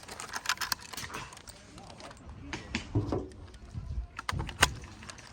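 Footsteps with gear rattling and scattered clicks and knocks, irregular and uneven, with a few heavier thuds around the middle.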